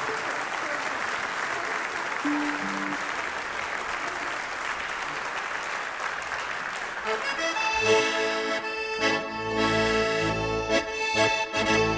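Audience applause. About seven seconds in, a piano accordion starts a traditional central-Polish folk tune, joined by the band's violin and the low beats of a large frame drum.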